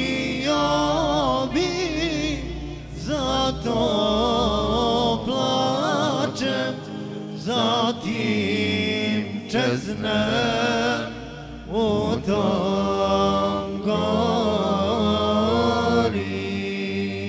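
A solo voice singing a heavily ornamented, wavering melody over a steady low accompaniment, in phrases of a few seconds with short breaks between them.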